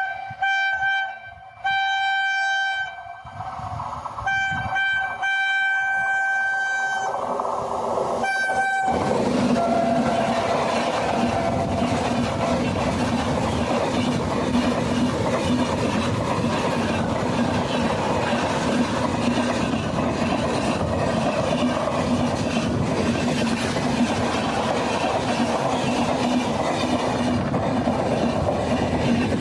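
WAP7 electric locomotive's horn sounding four loud blasts with short gaps between them, the third held about three seconds. From about nine seconds in, the Garib Rath Express passes with a steady rumble and clatter of wheels on the rails.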